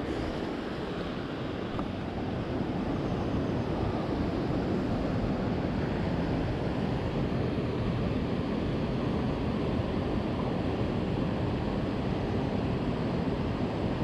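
River water rushing steadily, a dense low noise that gets a little louder about two seconds in.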